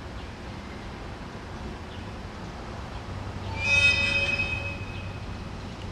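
A railway locomotive's air horn sounds once, a bright, high, buzzy note lasting about a second, over a low steady hum.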